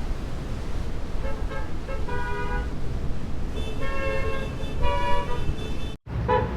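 Car horns honking over a steady rumble of road traffic: a few short toots, then two longer honks. The sound cuts off abruptly about six seconds in and starts again with another honk.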